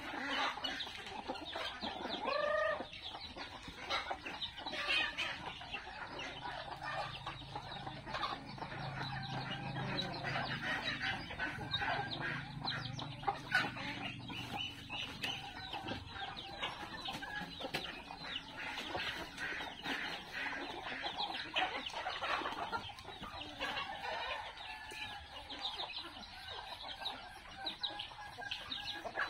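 A flock of chickens clucking continuously, many short calls overlapping, with one brief louder call about two and a half seconds in.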